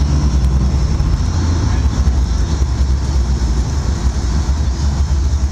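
Sportfishing boat's engines running with a steady low rumble, with wind and water rushing past.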